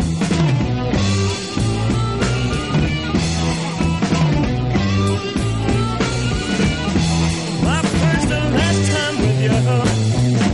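Rock music soundtrack: electric guitar and bass over a steady beat.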